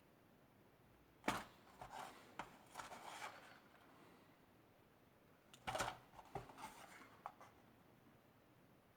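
Faint handling sounds: a sharp knock about a second in, then scattered rustles and clicks, and another short cluster of knocks and rustles a little past the middle.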